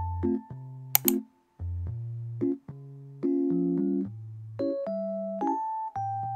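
Background music: a gentle electric-piano tune with soft chords over a bass line. A short sharp click comes about a second in.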